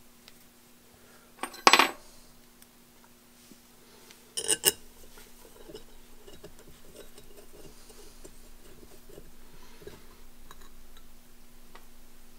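Two sharp metallic clanks, about a second and a half in and again about three seconds later, as steel parts are set down on the super spacer while its cover plate is refitted. After them come quieter metal handling and scraping sounds.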